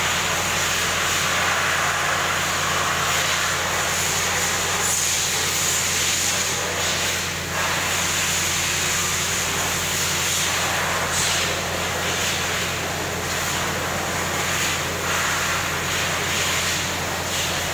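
Steady mechanical running noise from heavy machinery: a constant low hum under a broad hiss.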